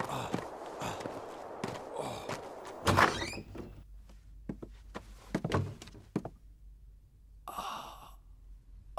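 A heavy thunk about three seconds in, then a few lighter knocks, and a short noisy rush about three-quarters of the way through.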